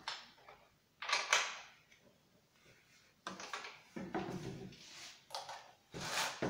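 Handling noise from a Husqvarna 450 chainsaw being turned and gripped on a wooden workbench: several short bursts of knocking, sliding and clicking of its plastic housing and handles, the loudest about a second in. The engine is not running.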